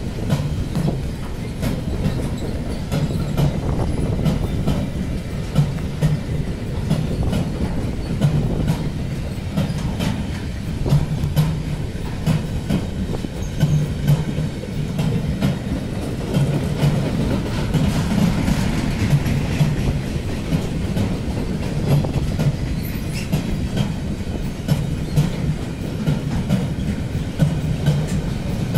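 Loaded car-carrier freight wagons rolling past at very low speed: steel wheels clacking and thudding over the rail joints in a slow, uneven rhythm. A faint wheel squeal comes in about two-thirds of the way through.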